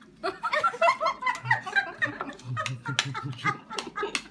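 People laughing softly in quick runs: high-pitched giggling through the first half and a deeper chuckle of five or six low pulses later, with a few sharp clicks in between.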